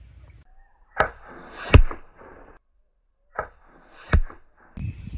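Barnett Whitetail Hunter STR crossbow shot twice: each shot a sharp snap, then a louder thwack of the carbon arrow striking the bag target, the two shots about two and a half seconds apart.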